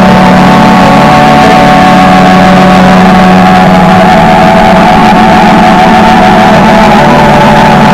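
Loud electronic glitch noise drone: a steady distorted hum with a low held tone and several higher held tones over a thick hiss, the low tone dipping a little about halfway through.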